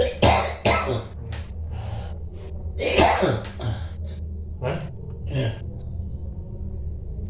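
A person coughing in short fits: three quick coughs at the start, two more about three seconds in and two weaker ones near five seconds. This is the dry cough the person being massaged suffers from.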